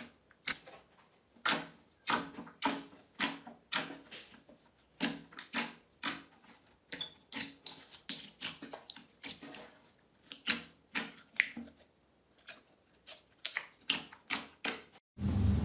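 Slime being pressed and worked by hand, giving a series of sharp, sticky clicking pops at irregular intervals of about half a second. A louder steady noise starts just before the end.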